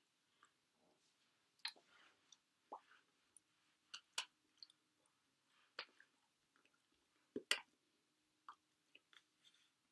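Near silence broken by scattered short clicks and smacks, the loudest about seven and a half seconds in: mouth noises and hand contact from a person signing.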